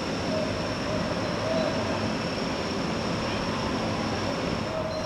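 Steady running noise of a moving vehicle, an even rumble and hiss with a thin steady high tone over it.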